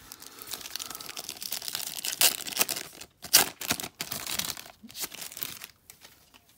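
Wrapper of a 1990–91 NBA Hoops basketball card pack being torn open and crinkled by hand, with the sharpest rips about two and three seconds in. The crinkling dies away near the end as the cards are drawn out.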